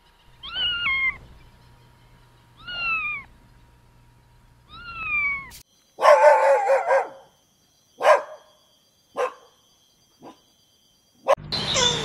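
A domestic cat meowing three times, each meow rising then falling in pitch. Then a Boston terrier barking: one longer bark followed by three short barks, each fainter than the last.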